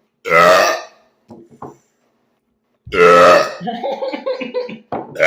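A man burping loudly: a big belch about a second in, and a second big belch about three seconds in that trails on more quietly for about a second. Another belch starts right at the end.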